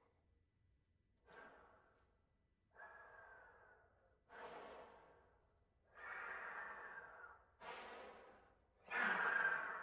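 Trombone played with breath sounds: six airy blown bursts of air through the instrument, each starting suddenly and fading over about a second, with a faint pitch showing through. They grow louder one after another, the last the loudest.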